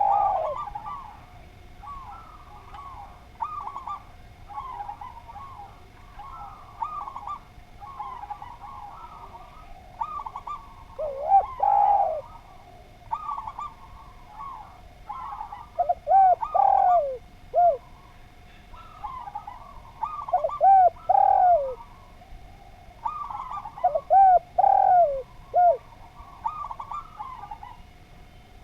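Spotted dove (derkuku/tekukur) cooing in repeated phrases. Loud, falling coos come every four seconds or so from about a third of the way in, with softer, higher calls filling the gaps between.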